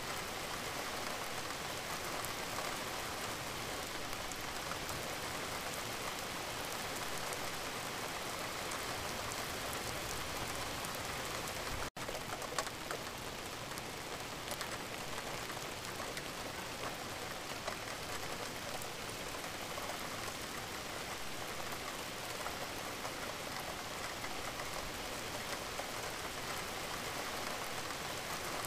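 Steady rain from an added rain-sounds track, with a split-second dropout about twelve seconds in.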